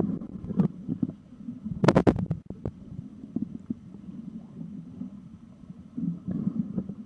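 Muffled low rumbling of water moving around an underwater camera housing, as it drifts over the wreck. A few sharp clicks come through, loudest in a quick cluster about two seconds in.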